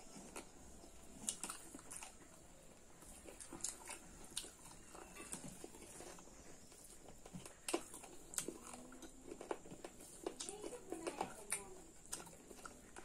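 Faint chewing and wet mouth clicks of two people eating pork curry and rice by hand, with scattered small sharp clicks and squishes from fingers working the rice on the plates.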